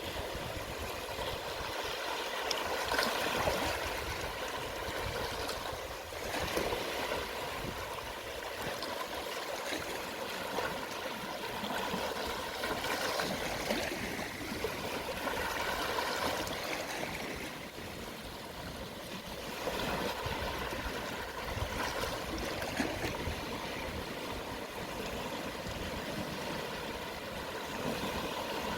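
Gentle sea waves at low tide, a soft hiss of water that swells and ebbs every few seconds.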